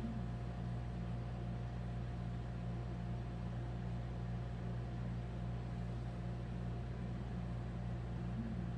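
A steady low machine hum with a faint steady higher tone above it, unchanging throughout, with no distinct events.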